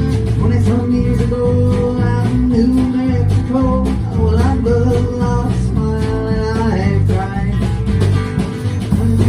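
Instrumental break of a guitar, bass and drums band: a guitar plays a lead line with bent notes over bass and a steady drum beat.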